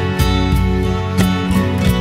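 Background music with plucked string notes over held tones.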